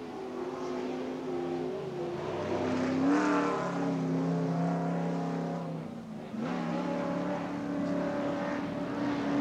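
Several off-road race truck engines running hard together at different pitches, revving up and falling back as the trucks work through the corners. They swell about three seconds in, dip briefly around six seconds, then pick up again.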